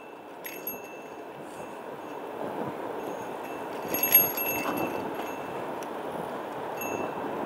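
Loose handlebar bell on a folding bike jingling in short, irregular rings as the bike goes over bumps, loudest about four seconds in, over steady wind and road noise from riding.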